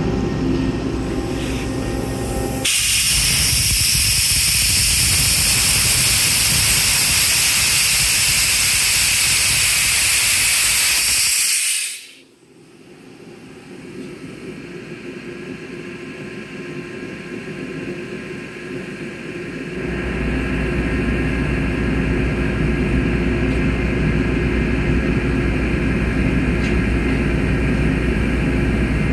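Ingersoll Rand UP6 10 hp rotary screw air compressor running, then a loud hiss of venting air for about nine seconds that cuts off sharply. The machine drops to a much quieter sound that slowly builds, and its deep running drone comes back about twenty seconds in.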